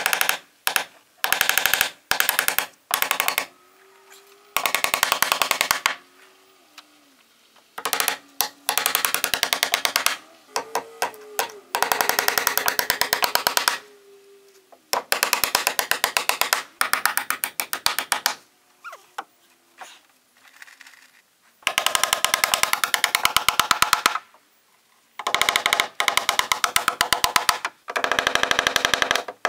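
Hand hammering nails into wooden siding, heard as rapid runs of blows, about ten a second, in bursts of one to three seconds with short pauses between.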